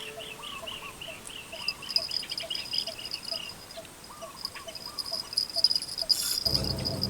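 Insects calling: a rapid run of repeating chirps and, from about a second and a half in, a steady high trill, over a slower, regular lower-pitched pulsing call. Near the end, music with a deep low part comes in.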